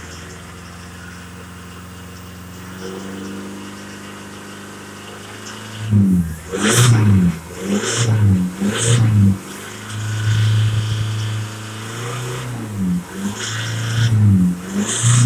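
Isuzu D-Max 3.0-litre four-cylinder turbo diesel revved with the vehicle standing still. It holds steady at raised revs for about six seconds, then is blipped up and down repeatedly, with a short steady hold in the middle. The pitch rises and falls with each rev.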